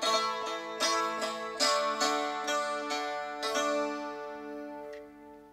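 Round-backed mandolin-family instrument played solo: chords and notes plucked about twice a second, closing a song. The last chord rings and fades away over the final two seconds.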